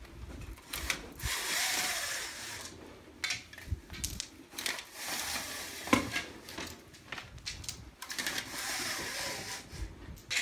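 Horizontal window blinds being worked by hand: three noisy passes of a second or two each as the slats and cord mechanism move, with scattered clicks and a sharp knock about six seconds in.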